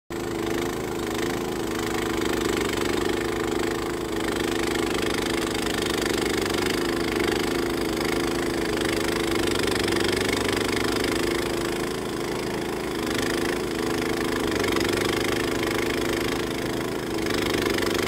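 Walk-behind snow blower's small engine running steadily under load as it cuts a path through deep snow and throws it from the chute.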